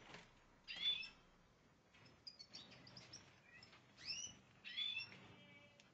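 European goldfinches chirping in several short bursts of quick, arching notes, a few of them loud.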